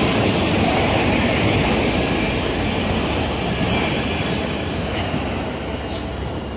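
Freight train of autorack cars rolling past on the rails: steady wheel-on-rail noise that slowly fades as the end of the train passes and moves away.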